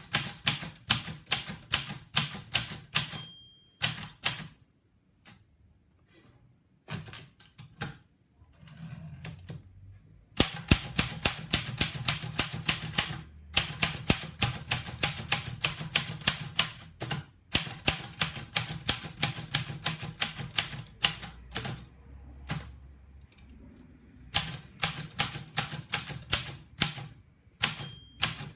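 Patria manual typewriter being typed on: rapid runs of sharp key strikes, broken by short pauses. A short bell ring sounds about three seconds in and again near the end, typical of the margin bell warning that the line's end is near.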